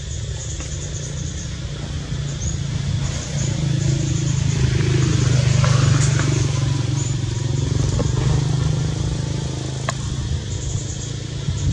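A low motor-vehicle engine drone that grows louder about a third of the way in and eases off again, like a vehicle passing. Short high chirps repeat in the background, and a single sharp click comes near the end.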